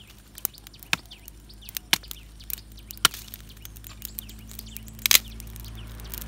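Small kindling twigs on a wood campfire crackling and snapping as the fire catches: irregular sharp cracks, the loudest a double crack about five seconds in.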